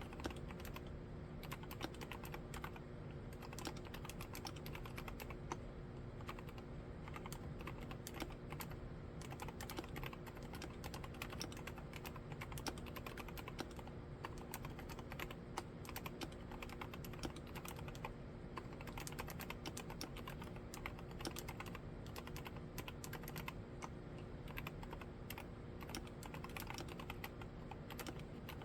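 Continuous typing on an Akko MOD007 75% mechanical keyboard with mStone Silent Milky silent switches: a dense, steady run of keystrokes.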